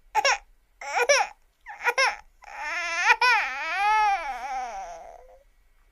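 Cartoon baby crying: three short sobbing cries, then one long wavering wail that rises and falls in pitch and fades away.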